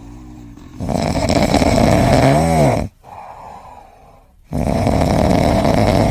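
A pet snoring loudly in long, noisy breaths. There are two snores of about two seconds each with a quieter pause between them, and a short rising-and-falling squeaky note near the end of the first.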